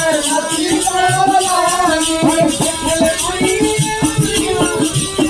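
Devotional folk bhajan music: a wavering melody line over rattling shaker-like percussion, with frequent drum strokes growing busier in the second half.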